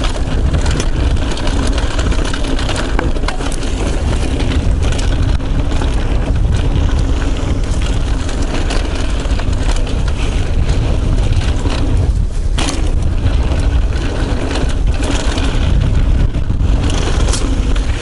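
Yeti SB75 full-suspension mountain bike riding fast down a dry dirt and gravel trail, heard from a chest-mounted action camera: a steady rumble of wind on the microphone and tyre noise, broken by frequent sharp rattling clicks and knocks as the bike runs over the rough ground.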